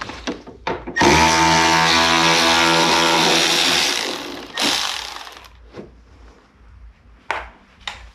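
Handheld electric power tool motor running at speed for about three seconds, then a short second burst, with scattered clicks of parts being handled.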